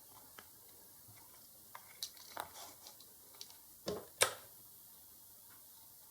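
Light clicks and taps of an oscilloscope probe and circuit board being handled on a workbench, scattered through, with two sharper knocks about four seconds in.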